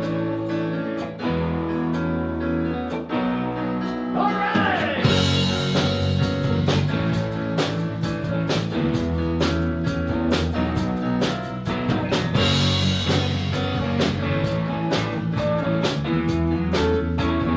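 Live blues-rock band playing a song on electric guitar with bass and drums. About four seconds in there is a bending note, and from about five seconds the band plays fuller and louder.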